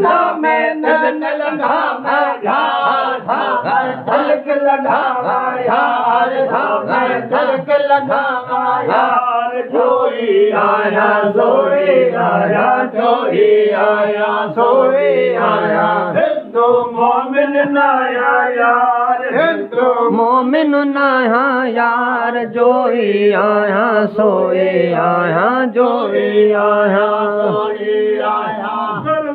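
A man singing a Sindhi devotional kafi in a chant-like style, holding long, wavering notes with only brief breaks.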